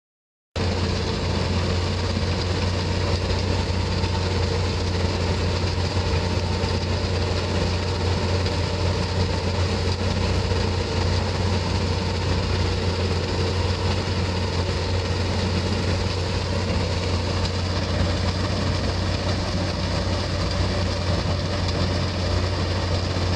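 Tracked mobile crushing plant running: a steady, loud drone of its engine and machinery with a strong low hum, starting abruptly about half a second in.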